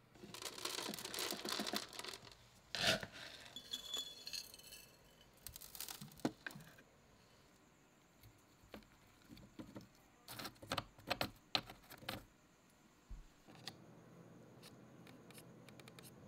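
Hands working dry moss and substrate inside a clear plastic enclosure: crackling rustles and scrapes in clusters, with a sharp click about three seconds in and another run of clicks and scrapes around ten to twelve seconds in. A faint steady hiss near the end.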